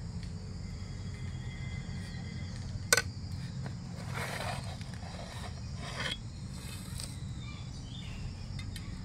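Hot charcoal and ash being cleared off the steel lid of a dum-cooking biryani pot, and the lid lifted off. There is a sharp metal knock about three seconds in, then a few seconds of scraping and rustling of coals and ash, and a click around six seconds in, over a steady low rumble.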